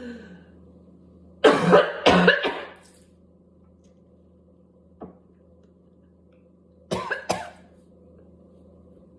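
A person coughing from whooping cough: two loud, harsh coughs about a second and a half in, then two shorter coughs about seven seconds in.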